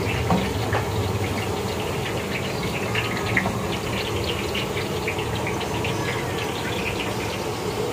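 Liquid cooking fat poured from a cut plastic pouch into a large iron karahi of oil, a steady pouring sound with many small scattered crackles over a low steady rumble.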